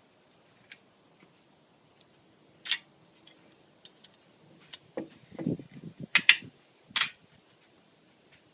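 Sharp metallic clicks and rattling handling of a Springfield M6 Scout combination gun's action, with a click about a third of the way in, a rattle and a close pair of clicks past the middle, and another click soon after. No shot goes off. With the firing-pin selector not fully set, the hammer falls without firing.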